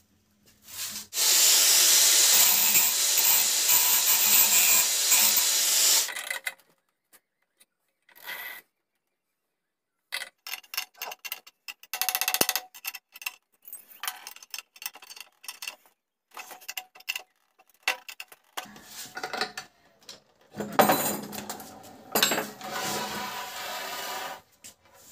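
Power tool running steadily for about five seconds as wood is worked, then a quick run of short knocks and clicks from hand work on the wooden scooter frame and its wheel mount, with more tool noise and knocking near the end.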